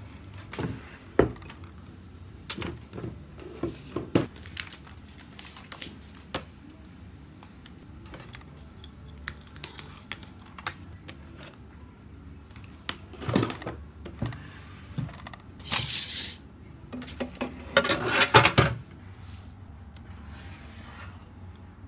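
Small objects being handled and set down on a wooden desk: scattered light knocks and clicks, with short bursts of rustling, the loudest a little after halfway and near the end.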